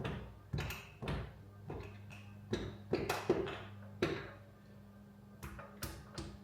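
Irregular sharp knocks and clanks of hand tools on metal parts during engine disassembly, about a dozen strikes with a short lull past the middle, over a steady low hum.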